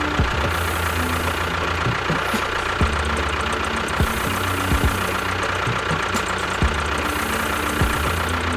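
An engine running steadily with a knocking, chugging beat and a steady high whine, like a tractor idling.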